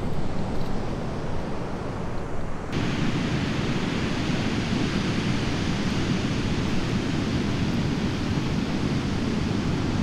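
Steady noise of ocean surf and wind on a beach. About three seconds in it shifts abruptly to a fuller, brighter hiss.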